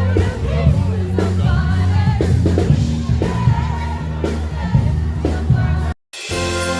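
A song with a singing voice over a steady beat cuts off abruptly about six seconds in. After a brief silence, a different piece of music with jingle bells starts.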